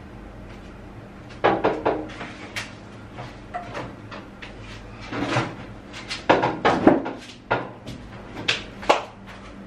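Handling sounds: sharp knocks and clicks, like hard plastic parts being moved and set down. They come in a cluster about a second and a half in, then more from about five seconds on, loudest around the seven-second mark.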